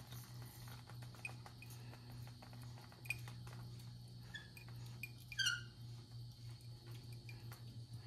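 A small brass water valve's handle being turned by hand: small clicks and a brief squeak about five and a half seconds in, over a faint steady low hum.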